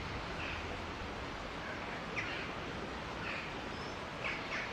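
Short bird calls, one roughly every second, over a steady background hiss.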